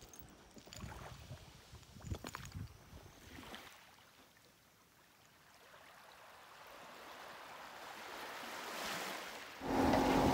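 Faint wash of small waves lapping at the shore, with a few soft knocks and scuffs in the first seconds. Near the end there is a sudden change to a boat's engine running steadily at a constant speed.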